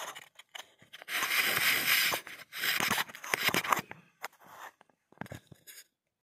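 Handling noise from a phone being moved about in the hand: rubbing on the microphone in two scraping stretches of about a second each, then a few light clicks and knocks.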